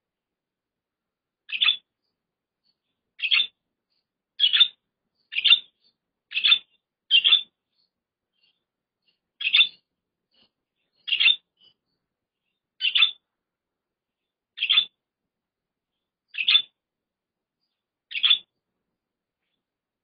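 Budgerigar giving a string of short single chirps, about a dozen, spaced a second or two apart.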